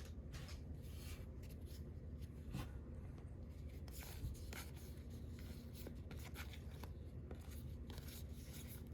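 Baseball cards being handled and slid past one another in the hands: faint soft rubbing with scattered light ticks.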